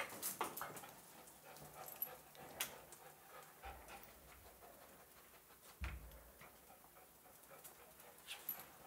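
Dogs panting, with scattered light clicks and taps and a couple of soft low thumps.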